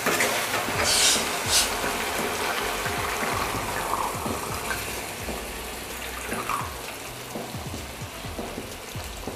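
Water poured from a steel bowl into a hot kadhai of fried chickpea masala, splashing steadily into the pan, with a couple of sharp knocks about a second in. This is the water added to make the gravy once the masala has released its oil.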